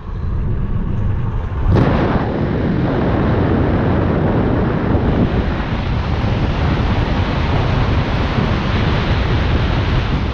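Car driving at speed, first heard as muffled road noise inside the cabin. About two seconds in it jumps to a loud, steady rush of wind buffeting the microphone as it is held outside the moving car.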